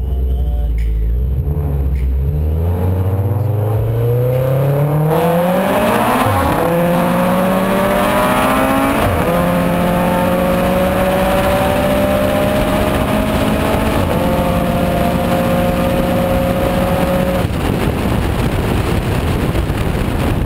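Subaru Forester XT's turbocharged flat-four on a drag-strip pass, heard from on board. It launches off the line, climbs in pitch through the gears with three upshifts, and lets off near the end, leaving wind and road rush.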